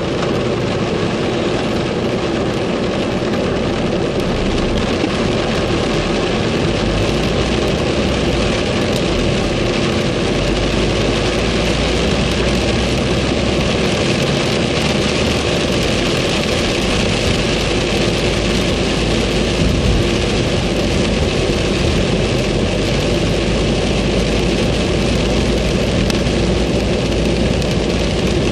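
Heavy rain pelting a car's roof and windshield, heard inside the moving car over the low rumble of its engine and tyres on the wet road: a steady, dense hiss of drops with no letup.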